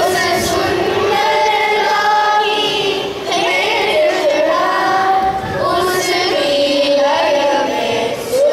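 Children's chorus singing a Hindi song together in unison, one melody in held phrases with short breaks between them.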